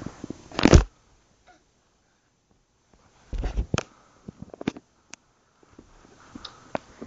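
Two short bursts of rustling, one just before a second in and one about three and a half seconds in, followed by several sharp clicks and knocks.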